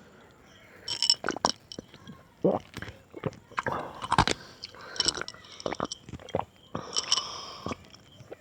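Mango being eaten: wet biting and chewing, with irregular smacks and clicks starting about a second in.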